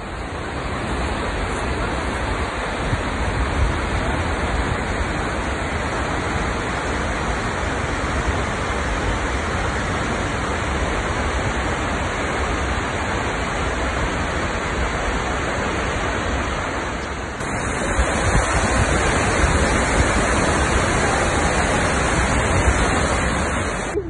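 Steady rushing of water falling at Skógafoss, a large waterfall. It fades in at the start and becomes a little louder and hissier about two-thirds of the way through.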